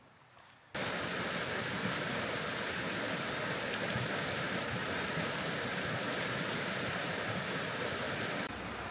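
Fast, shallow creek rushing steadily over rocks and riffles, starting abruptly just under a second in and dropping to a quieter steady rush near the end.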